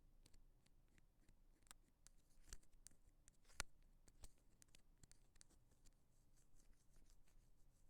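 Ear pick scratching and tapping against an earphone-style microphone: faint, scattered clicks and scrapes, the sharpest click about three and a half seconds in.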